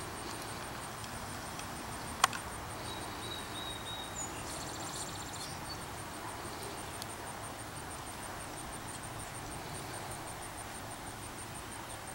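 Outdoor field ambience: a steady hiss of air, a high insect call pulsing evenly throughout, and a bird calling a few seconds in. A single sharp crack about two seconds in is the loudest sound.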